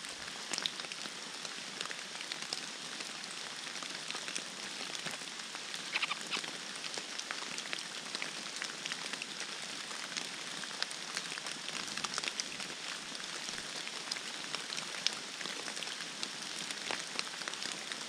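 Steady pattering of rain on forest foliage, a continuous hiss dotted with many small drop ticks.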